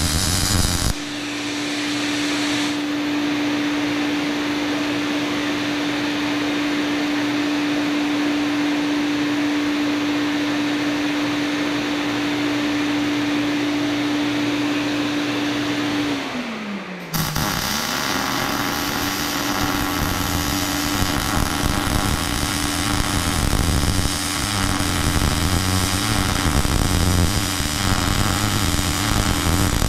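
Wire-feed (MIG) welding arc crackling and sputtering for about a second, then a steady motor hum from the small fume extractor fan while the torch is lifted. About seventeen seconds in, after the hum sags briefly in pitch, the welding crackle starts again and runs on over the hum.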